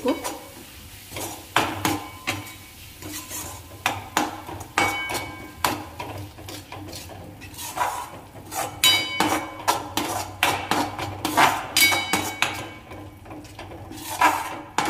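Perforated steel spoon scraping and clanking against a metal kadhai while stirring a thick spice paste: irregular strikes, each with a short metallic ring, coming thickest in the second half.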